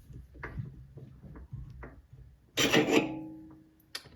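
Light clicks of steel parts being handled, then about two and a half seconds in a loud, short scraping rub of a turned steel MT2 taper shank twisted in the tailstock's Morse taper bore to check its contact marks, with a brief metallic ring fading after it. A sharp click near the end.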